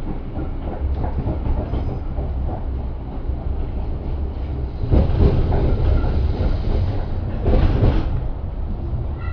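Tram running along its rails, heard from inside the car: a steady low rumble that grows louder for a stretch about five seconds in and again near the end.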